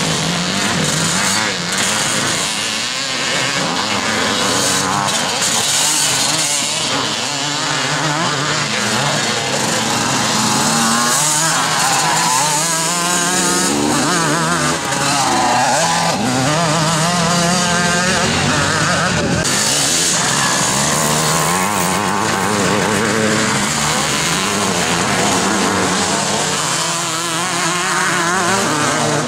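Several vintage twin-shock motocross bikes racing, their engines revving up and down over one another as they pass and climb the hill.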